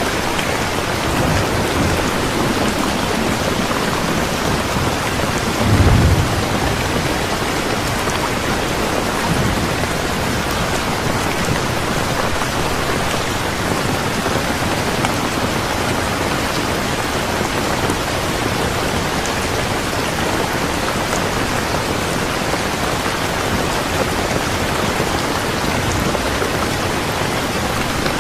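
Steady rain falling, with a short low rumble of thunder about six seconds in.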